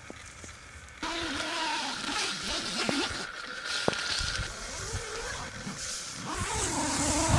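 Nylon tent fabric rustling as the tent door is handled, with a zip being run along the door: a rasp that slides down and back up in pitch near the end. Two sharp clicks come about halfway through.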